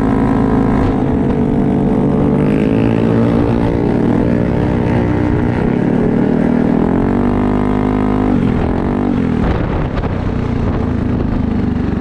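Yamaha Aerox 155's single-cylinder engine running through an aftermarket Corse Italian Performance carbon-fibre exhaust, revved up and down several times. It drops quickly back toward idle about two-thirds of the way through.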